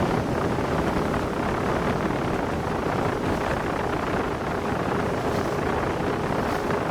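Suzuki outboard engine running under throttle as the RIB speeds up on plane, with a steady engine tone under wind buffeting the microphone and water rushing past the hull.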